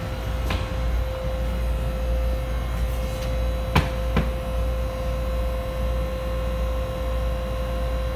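MTR M-Train standing at an underground platform with its doors open, a steady low hum with a constant pitched whine. A sharp click or knock comes about four seconds in.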